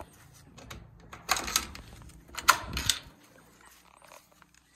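Wooden chicken coop door with a wire-mesh panel being unlatched and pulled open: a few light clicks, then two loud rattling scrapes about a second apart.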